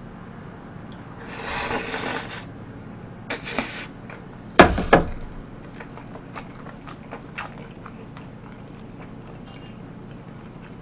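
Close-miked eating sounds of a mouthful of spicy tteokbokki with fish cake and dumpling: a short slurping hiss about a second in and another near three and a half seconds, then small wet chewing clicks. A sharp knock comes about halfway through, with a smaller one right after it.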